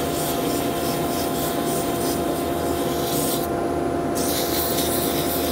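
150-grit abrasive paper rubbing against a wooden bottle stopper spinning on a lathe at about 700 rpm: a steady sanding hiss over the even hum of the lathe and dust extractor. The hiss stops briefly about three and a half seconds in, as the paper comes off the wood.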